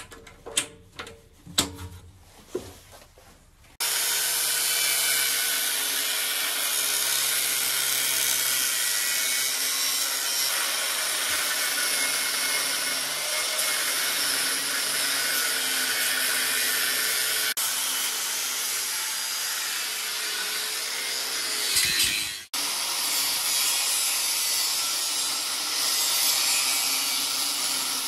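A few sharp clicks and knocks as the toggle clamps on a metal battery box are latched shut. Then an angle grinder with a cutting disc runs steadily through the steel tube frame of an ATV chassis, its sound sagging and breaking off briefly about 22 seconds in before it runs on.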